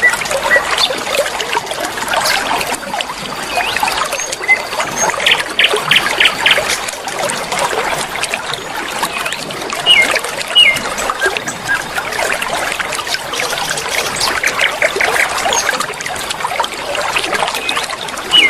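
Flowing river water, a steady trickling and splashing, with bird calls over it: a quick run of short notes about five seconds in and again near fifteen seconds, and a few curving whistled notes around ten seconds.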